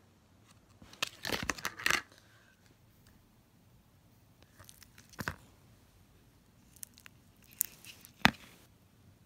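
Foam slime being squeezed and pulled by hand, crackling and popping in short bursts: a cluster about a second in, another near the middle, and a sharp, louder pop near the end.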